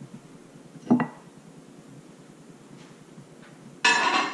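A sharp glass clink with a short ring about a second in, then a louder clatter of knocks near the end as the microwave is handled.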